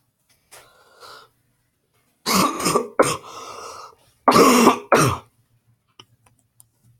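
A person coughing and clearing their throat close to the microphone: a short quiet rasp just after half a second in, then two loud fits of double coughs about two and four and a half seconds in.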